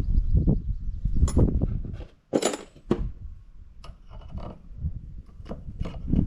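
Small metal engine parts and tools being handled on a workbench: rumbling handling noise with about half a dozen sharp metallic clinks and knocks, the loudest about two and a half seconds in, some ringing briefly.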